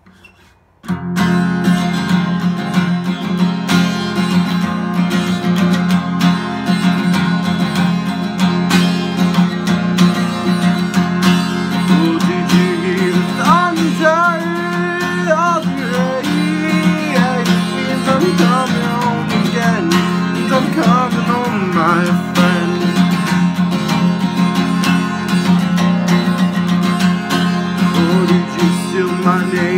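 Acoustic guitar with a capo on the neck, strummed steadily, starting about a second in. A man's singing voice joins about twelve seconds in.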